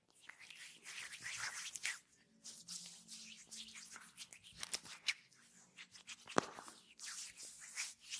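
Hands rubbing and sliding over oiled skin in a massage: a run of hissing strokes with short pauses between them, and one sharp click about six seconds in.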